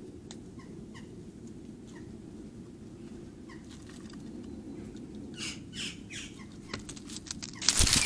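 Magpies taking flight: a few faint short calls, then harsh squawks about five seconds in, ending in a loud burst of wingbeats as the birds flush.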